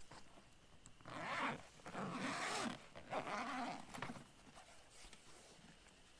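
Zipper on a soft padded wood-stove carry bag being unzipped in three drawn-out pulls, from about a second in until about four seconds in.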